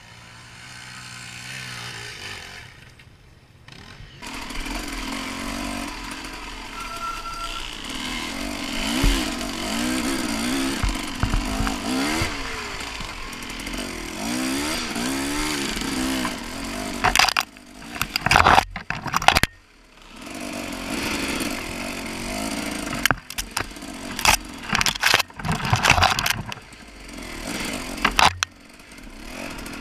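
Husaberg TE 300 two-stroke dirt bike engine, ticking over quietly for the first few seconds, then revving up and down repeatedly as the bike is ridden along a forest trail. Past the middle and again later come several loud short clattering bursts.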